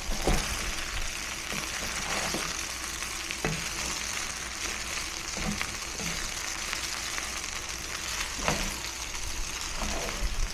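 Rice dish with melting cheese sizzling steadily in a pan on the stove, with a few light knocks in between.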